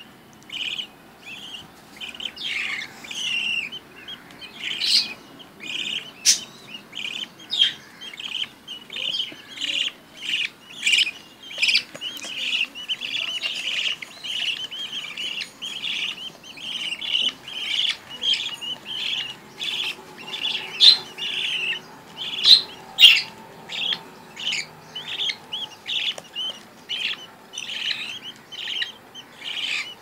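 Budgerigar chicks chirping: a continuous string of short, high cheeps, roughly two a second.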